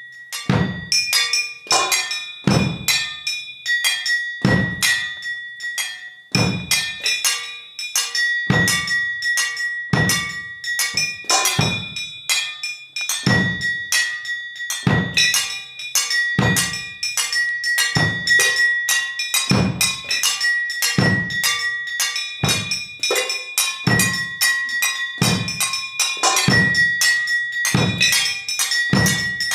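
Solo percussion on found metal objects: a dense, fast rhythm of metal strikes with ringing high tones, over a low drum-like stroke every second or two.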